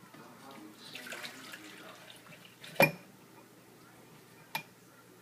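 Milk being poured into a blender jar, a soft uneven splashing, followed a little before halfway through by one sharp knock and, about two seconds later, a lighter click of something set down.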